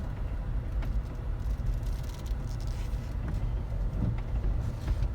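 Car interior noise while driving slowly: a steady low rumble of engine and tyres, with a few faint ticks.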